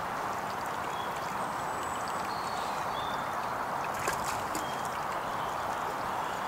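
Stream flowing steadily, an even rushing sound, with a few faint short high chirps and a small click about four seconds in.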